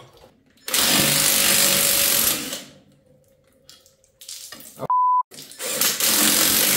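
Cordless impact driver running in two bursts of a couple of seconds each while it loosens the bolts holding the manifold on a Ford 8N tractor engine. A short, clear beep sounds just before the second burst.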